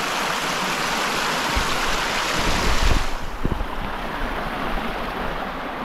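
Small creek's water running steadily, a constant rushing hiss that turns duller about halfway through, with low bumps and rumble on the microphone.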